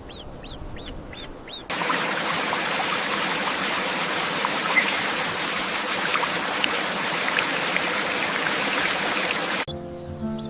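Short, high chirps repeated about three times a second, then a loud, steady rushing hiss like running water that switches on abruptly and cuts off sharply about eight seconds later.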